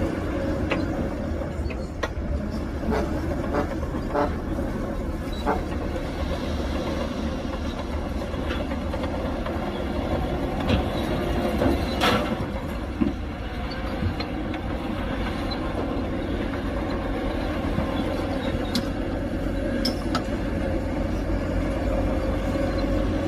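Heavy diesel earthmoving machinery running steadily under load, a low engine drone with a steady whine over it. Scattered metallic clanks run through it, with a sharper clank about twelve seconds in.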